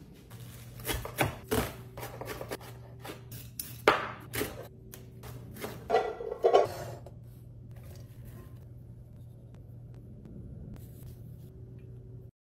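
Knocks and clatter of food storage containers and a bowl being handled and set down, a dozen or so sharp strikes through the first seven seconds, the loudest about four and six seconds in. After that a faint steady hum carries on.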